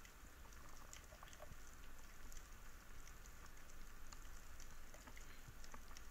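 Faint underwater ambience over a rocky reef: a soft hiss with scattered, irregular small clicks and crackles.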